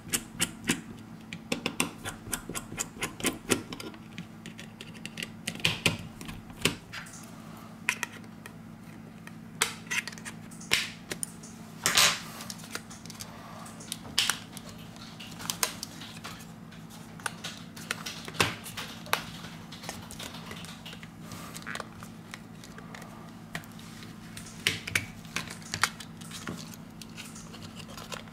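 Irregular small clicks, taps and snaps of a screwdriver and the plastic and metal housing parts of a Samsung Galaxy S5 being handled and pried apart, over a steady low hum.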